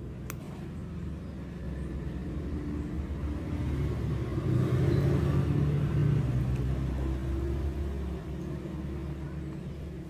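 Low rumble of a passing motor vehicle, swelling to its loudest about halfway through and then fading.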